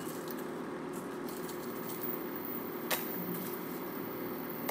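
Steady low hum of a portable induction cooktop, with one sharp click about three seconds in.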